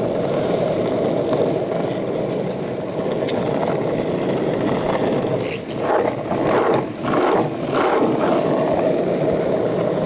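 Longboard wheels rolling over asphalt: a steady rumble, with a few louder rough surges between about six and eight seconds in.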